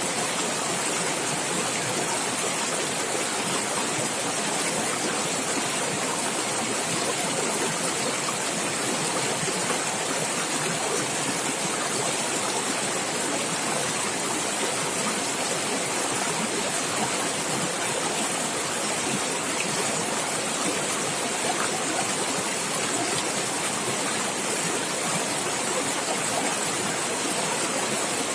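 Stream of running water splashing and gurgling steadily.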